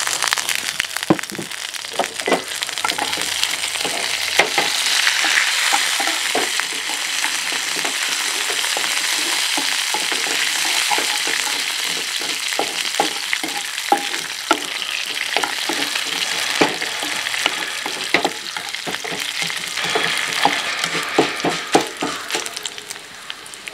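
Dried red chillies and curry leaves sizzling and spattering in hot oil in a small non-stick frying pan, frying for a South Indian tempering. A wooden spatula stirs them and clicks against the pan many times.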